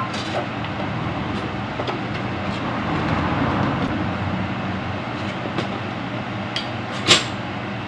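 Steady rumbling background noise with a low hum, swelling slightly midway, and one sharp click about seven seconds in.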